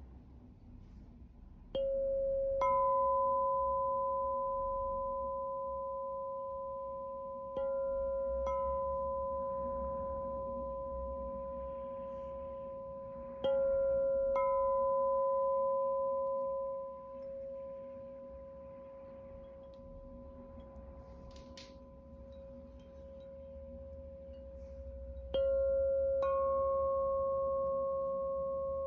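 Two singing bowls, one lower and one higher, struck one after the other four times. Each stroke starts with a sharp tap and rings on as a clear, steady tone that fades slowly over several seconds.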